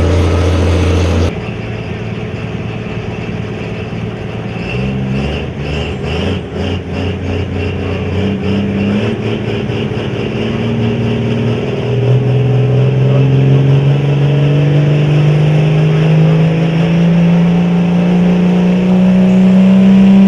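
Diesel pickup truck engine pulling a weight-transfer sled under heavy load. Its note pulses unevenly at first, then climbs steadily in pitch and gets louder as the truck works down the track.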